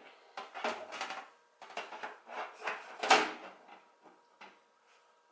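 Side cover of a PC case being fitted and closed: a series of scrapes, clicks and knocks of the panel against the metal case, the loudest about three seconds in.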